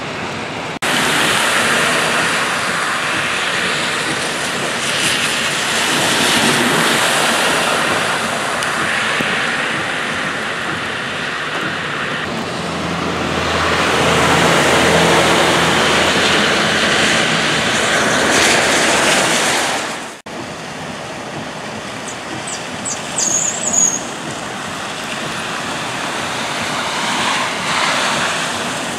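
Steady noise of heavy rain and running water on a flooded street, with cars swishing through the standing water. A vehicle engine hums past in the middle, and a few short high chirps sound about three-quarters of the way through.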